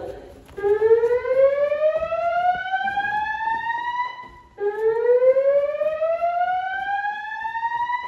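Fire alarm voice-evacuation speakers of a Notifier system (System Sensor speaker strobes) sounding the whoop evacuation tone: two long rising sweeps, each about three and a half seconds, with a short gap between them.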